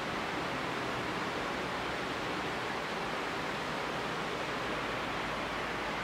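A steady, unchanging hiss of noise with no breaks, tones or individual events.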